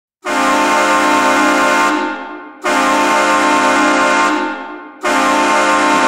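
Bemidji State Beavers hockey goal horn sounding three long blasts of about two seconds each, with the sound ringing away between blasts.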